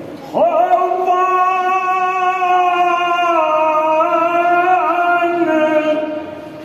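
A man's voice singing one long held note of a Kashmiri marsiya (Shia elegy) solo. The pitch dips slightly about three seconds in and wavers near five seconds before the note fades.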